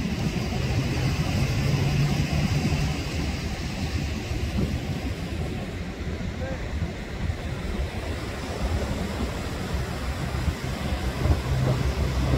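Wind rumbling on the microphone over steady surf breaking on a sandy beach.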